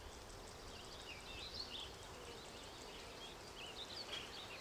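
Faint rural ambience with small birds chirping and twittering in short bursts, once about a second in and again near the end.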